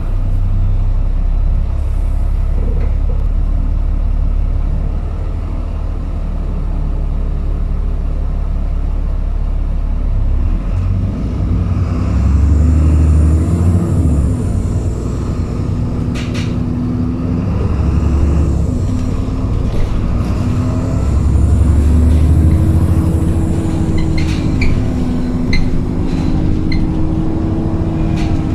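Dennis Trident 2 double-decker bus heard from inside the passenger cabin: its diesel engine runs with a steady low rumble. From about halfway, the engine and transmission note repeatedly rises in pitch and drops back as the bus accelerates through its gears, with a few rattles from the bodywork.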